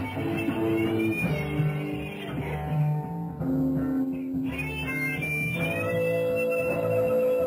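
Live rock band playing an instrumental passage with guitar to the fore: held notes and a few bent notes over bass.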